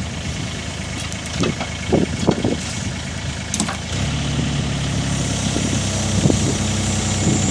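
Wacker Neuson 3.5-tonne mini excavator's diesel engine running, with a few sharp knocks in the first half. About four seconds in, the engine note grows stronger and a little louder, then holds steady.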